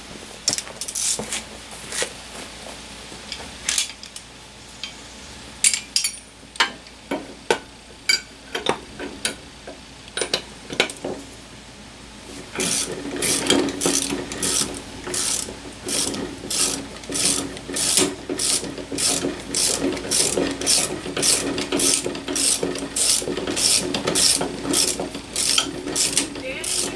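Hand-worked mechanism clicking and ratcheting: scattered clicks and knocks at first, then from about halfway a regular stroke about twice a second over a steady hum.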